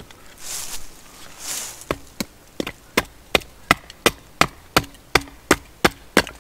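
Wood being chopped: a steady run of sharp strikes, about three a second, starting about two seconds in, with two short swishes before them.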